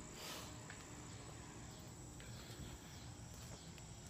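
Insects trilling steadily on one high pitch, over a faint low rumble and a few soft clicks.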